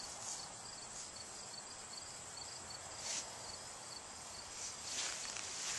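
Faint insect chirping, short high chirps repeating about three times a second, with a couple of brief rustles about three and five seconds in.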